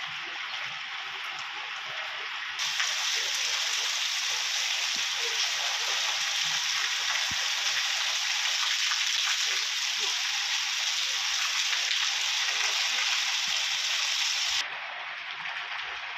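Heavy rain pouring down as a steady, dense hiss. It turns louder and brighter about two and a half seconds in and drops back near the end.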